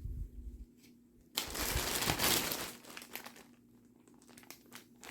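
Crinkling rustle of craft materials being handled and sorted by hand, with a low bump at the start and a loud burst of rustling for about a second and a half, about a second and a half in, then smaller intermittent rustles.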